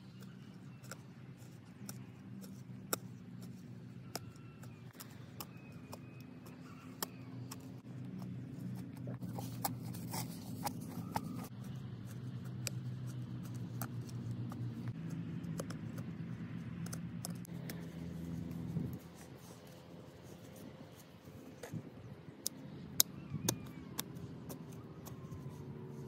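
Small hand hoe chopping and scraping into a bank of packed clay soil: irregular sharp knocks and scrapes of the blade, with loose earth crumbling away. Under it a steady low hum fades out about three-quarters of the way through and returns near the end.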